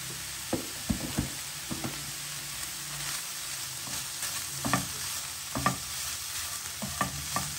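Diced boiled chicken frying in a nonstick pan, with a steady sizzle, as a silicone spatula stirs ground spices through it. The spatula knocks and scrapes against the pan at irregular moments, a few times a second at most.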